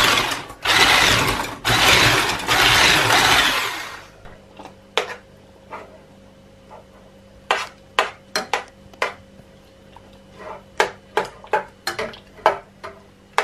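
Electric hand mixer whipping eggs and sugar in an enamel pot, running loudly with two brief breaks and switching off about four seconds in. After that, scattered light clinks and taps of a glass lid and a spoon against a metal saucepan.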